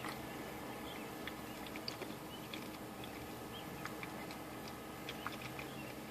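Faint gulping and swallowing clicks from a man chugging a can of energy drink without a break, over a quiet steady background hum.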